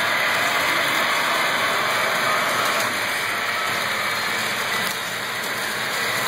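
HO-scale model freight trains running past on the layout track: a steady rushing noise of wheels and motors on the rails, with no separate clicks or horn.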